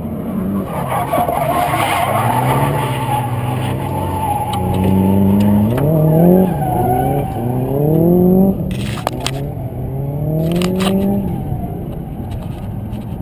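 Drift cars' engines revving in repeated rising sweeps a second or two apart, with a few sharp clicks about two-thirds of the way through.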